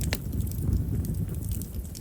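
Chestnut firewood burning in an open fire: a steady low rumble of flame with a few sharp crackles, the clearest one just after the start. Chestnut's large vessels make it a wood known for popping as it burns.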